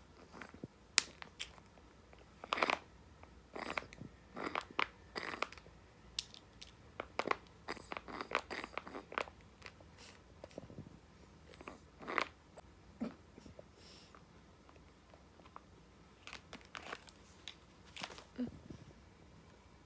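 A kitten biting and chewing on something hard: irregular crunches and clicks in clusters, with quiet gaps between them.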